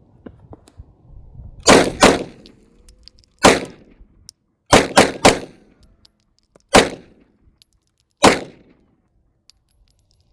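Glock 17 Gen 4 9mm pistol fired eight times at an uneven pace: a quick pair, a single shot, a fast string of three, then two single shots.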